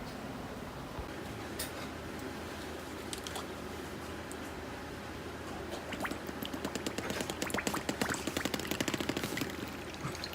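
Close-miked eating of Korean fire noodles: a quiet steady background, then about six seconds in a fast run of wet mouth clicks and slurps lasting about three seconds.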